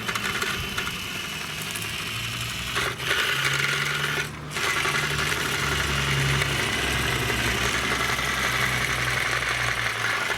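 Child's chainsaw running with a steady motor buzz, cutting out briefly twice, about three and four and a half seconds in.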